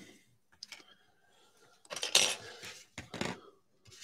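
Trading cards being handled and shuffled on a table: a few short scrapes and clicks, the longest just after two seconds in.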